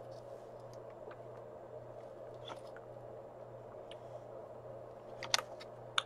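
Faint mouth and swallowing sounds of a person drinking water from a spouted aluminum pouch, over a low steady room hum, with a brief sharper noise about five seconds in.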